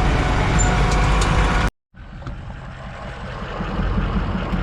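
Tractor engine running steadily. It drops out abruptly for a moment about two seconds in, then returns quieter and gradually grows louder.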